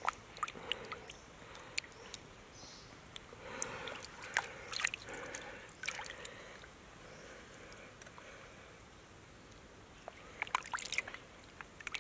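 Faint water splashing and dripping, with scattered sharp clicks and a quick run of clicks near the end.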